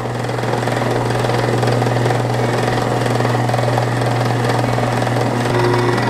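Electric rice-noodle (ban tiao) cutting machine running steadily, its rollers slicing steamed noodle sheets into strips: a low motor hum with a fast rattle.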